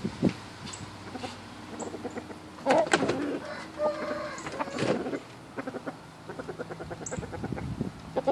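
Young gamecock rooster clucking: two louder calls about three and five seconds in, then a quick, even run of low clucks.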